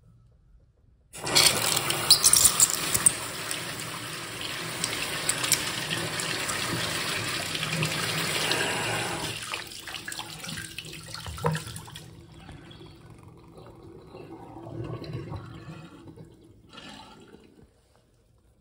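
Miniature Saxonette-style toilet flushing hard: a sudden loud rush of water starts about a second in and pours for around eight seconds. It then drops off into softer trickling and gurgling that fades out near the end.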